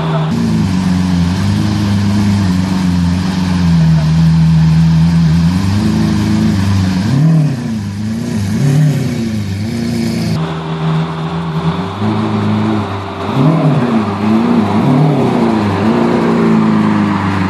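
Lamborghini Aventador LP700-4's V12 engine running steadily, then revved in two sets of quick blips that rise and fall in pitch: the first about six seconds in, the second around thirteen seconds.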